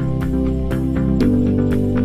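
Background music with a steady beat, sustained bass chords and plucked guitar-like notes.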